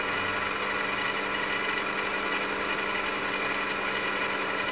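Electric motor of a benchtop machine running steadily, spinning a three-jaw chuck at a constant speed; a steady hum with several even tones.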